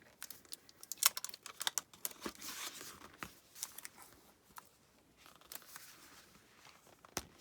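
Pages of a 6x8 scrapbook paper pad being flipped through: a run of irregular paper rustles and swishes with light taps, and one sharper snap near the end.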